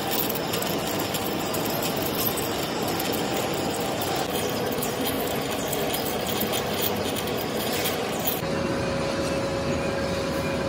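Large engine lathe turning an iron shaft, the cutting tool taking a cut with a steady hiss and chips clicking off. About eight seconds in the hiss eases and a steady hum is left.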